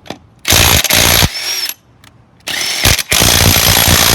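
Ryobi 3-speed cordless impact wrench hammering on a car wheel's lug nut in three bursts: one just under a second long about half a second in, a short one about two and a half seconds in, and a longer one near the end.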